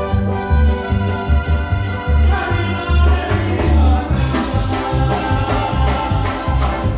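Live band music: electric keyboard holding organ-like chords over electric guitars and drums, with a heavy, regular bass beat of about two pulses a second.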